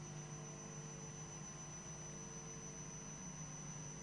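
Faint room tone of a hushed hall: a steady low electrical hum with a thin high-pitched whine and light hiss, with no voices or movement.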